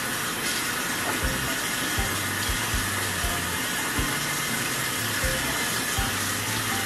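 Faucet water running steadily into a bathroom sink while hands are washed under the stream.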